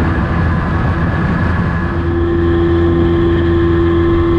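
Outboard motor pushing a small aluminium boat along at speed, a steady drone with water rushing past the hull. A steady higher hum joins about two seconds in.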